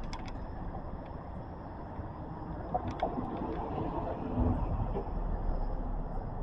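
Street traffic rumbling low and steadily, with a vehicle's engine coming through louder about four and a half seconds in.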